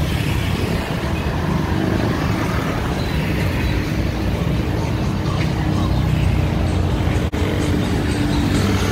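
Street traffic going by: motorcycles, cars and vans driving past with engines running and tyre noise, a steady low rumble. The sound cuts out for an instant about seven seconds in.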